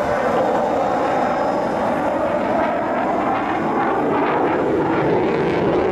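Mitsubishi F-15J Eagle fighter's twin turbofan engines as it flies a banking display turn overhead: loud, steady jet noise that takes on a rough, crackling edge about halfway through.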